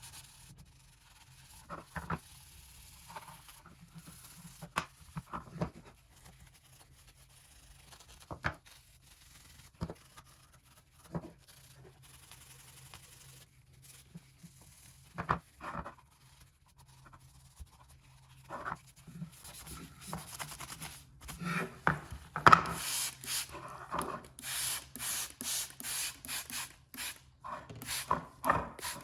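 Scattered light clicks and knocks, then from about two-thirds through a quick run of rubbing or scrubbing strokes, several a second, over a faint steady hum.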